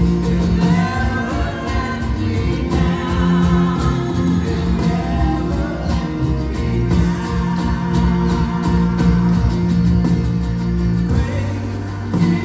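Live church worship music: voices singing a gospel song over instrumental accompaniment with held bass notes.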